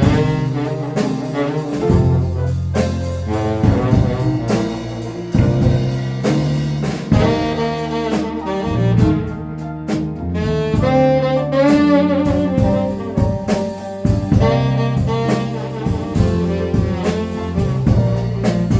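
A band playing, with a saxophone carrying the melody over bass and drums.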